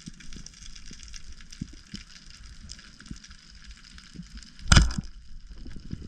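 Underwater ambience recorded by a diving camera: a steady crackle of fine ticks with small scattered knocks, and one loud, sudden thump about three quarters of the way through.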